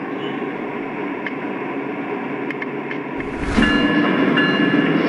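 Lionel O gauge diesel locomotives running around the layout in a lash-up: a steady rumble of wheels on track and the electronic diesel engine sound. About three seconds in comes a short burst of hiss and deep rumble, after which the sound is louder, with steady tones over the rumble.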